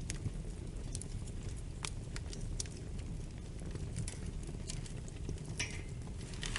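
Wood fire crackling: a steady low rumble of flames under irregular sharp pops and snaps, a few of them louder, about two seconds in and near the end.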